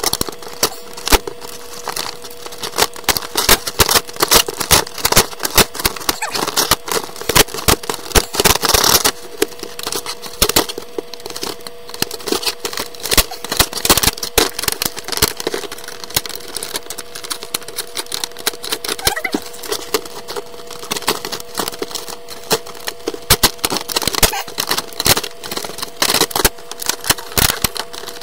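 Hard plastic clamshell packaging being cut and pried open with a knife, played sped up: a dense, irregular run of cracks, snaps and crinkles, over a faint steady hum.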